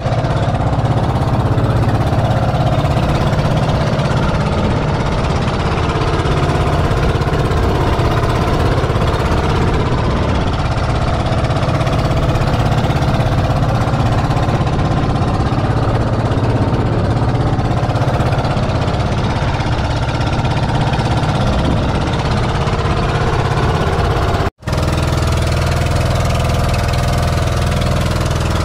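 An outrigger boat's engine running steadily at speed, with water rushing and splashing past the hull. It breaks off for an instant about 24 seconds in, then goes on at a slightly lower pitch.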